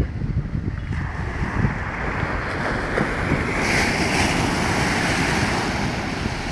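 Sea surf breaking on a sandy beach: the hiss of a breaking wave swells from about a second in, is loudest around the middle as it crashes and foams up the sand, then eases. Wind buffets the microphone underneath with a low rumble.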